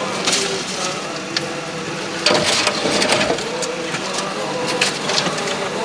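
Snowy branches and saplings scraping and snapping against the cab and windscreen of a homemade all-terrain vehicle as it pushes through an overgrown track, heard from inside the cab. It comes in several crackling bursts, the longest from about two to three seconds in, over the steady hum of the vehicle's engine.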